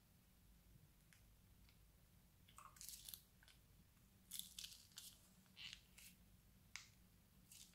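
Clear plastic piping bag crinkling as it is squeezed to push small rose charms out of its cut tip: a string of short, faint crackles starting a couple of seconds in.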